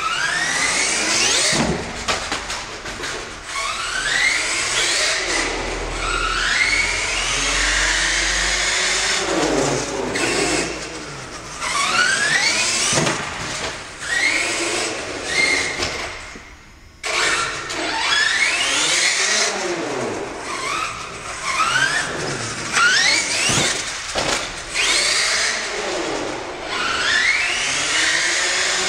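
Small nitro engine of an HPI Savage SS radio-controlled monster truck revving up and down over and over, each burst of throttle a rising whine, echoing off the concrete of a parking garage. The sound drops away briefly a little past halfway, and a few short knocks stand out.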